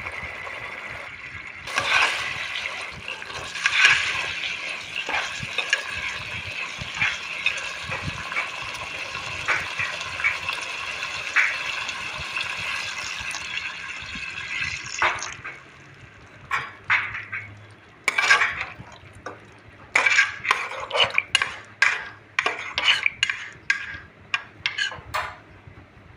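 Fish curry cooking in a pan with a steady hiss through the first half, then a metal spoon stirring and clinking against the pan in a run of quick knocks through the second half.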